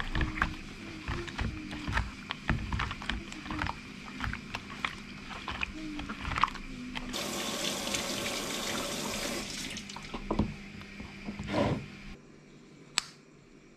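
A peeled pineapple being rubbed and swished by hand in a bowl of salted water, with repeated splashing and sloshing, and a steady rush of water for about two seconds midway. One sharp click near the end.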